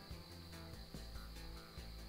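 Quiet background music with a steady beat and held bass notes.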